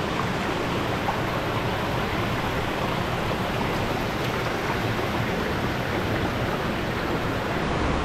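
Steady rushing of water pouring over and between boulders in a rocky stream at the foot of a small waterfall.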